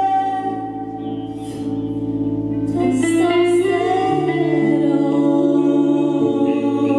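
A woman singing live into a microphone, backed by a band. A long held note fades about a second in, and the singing picks up again near the three-second mark.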